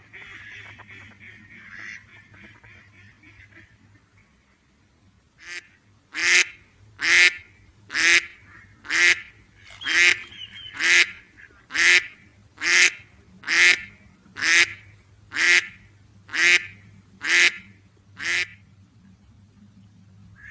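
Duck quacking: a few seconds of softer quacks, then a steady series of about fifteen loud quacks, roughly one a second, that stops a couple of seconds before the end.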